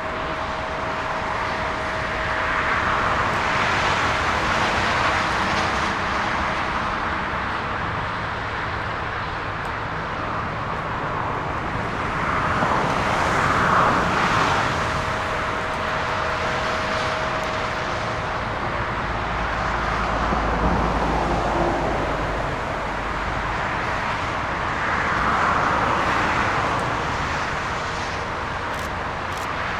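Continuous outdoor engine noise at an airport, swelling and fading three times as engines pass close by, with a faint steady hum underneath and a deep rumble a little past the middle.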